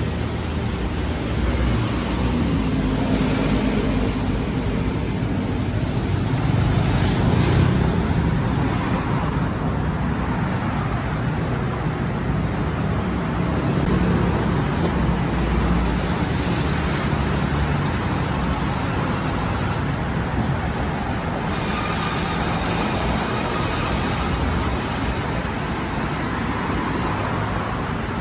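Road traffic on a city street: a steady rumble of cars and buses going by on the road beside the sidewalk, swelling as a vehicle passes about seven seconds in.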